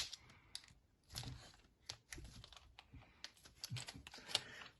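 Small sealed plastic bags of minifigure helmets being handled and fumbled at to open them: scattered light clicks and short crinkles of plastic, with a sharp click at the start.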